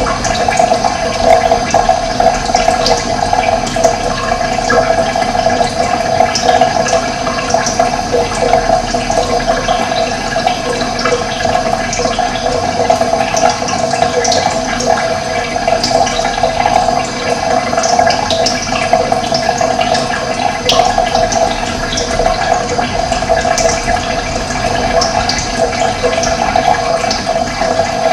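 Running water flowing steadily, a continuous rushing and splashing that stays even throughout.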